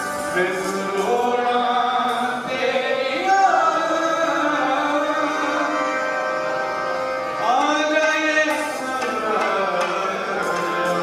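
Harmoniums playing a devotional tune in sustained chords, with a man's voice singing over them at times.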